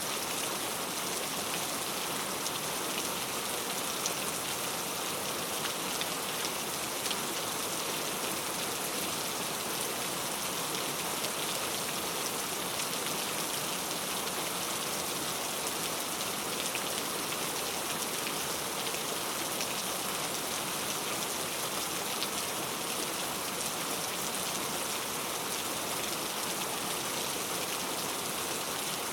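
Steady rain falling, an even hiss of drops with faint scattered ticks and no change in intensity.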